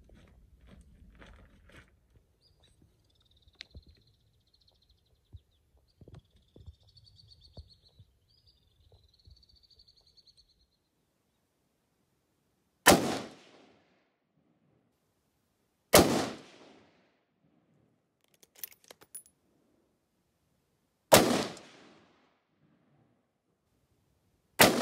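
Four unsuppressed rifle shots from a Blaser R8 in .308 Winchester, a few seconds apart, each a sharp crack with a short echoing tail. The last comes right at the end.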